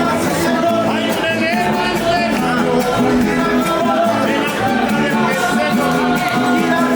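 Mariachi band playing a song, with singing and guitars.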